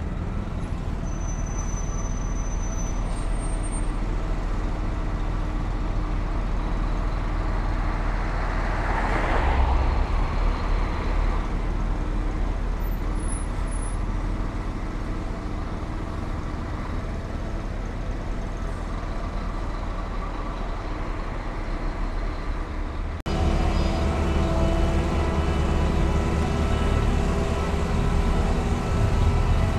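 Street traffic rumbling steadily, with one vehicle swelling loudly past about nine seconds in and a large coach bus driving close by with its engine running. Near the end the sound changes abruptly to a louder, steady engine hum with several held tones.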